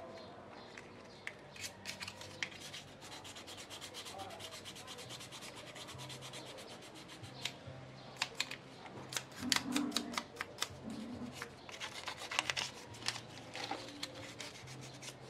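Hand tools working on a car battery terminal: metal clicking and scraping, with quick runs of clicks in the middle and again near the end, over a faint steady hum.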